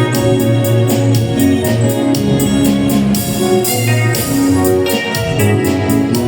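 Music: held chords over a quick, steady beat.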